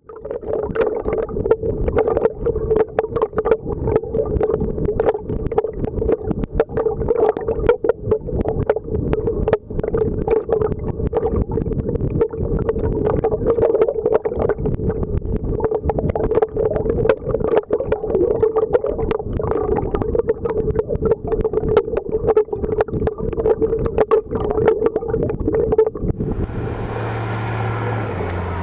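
Underwater ambience picked up by a submerged camera: a steady hum with dense, irregular crackling clicks. About 26 seconds in it changes to an even hiss over a deeper steady hum.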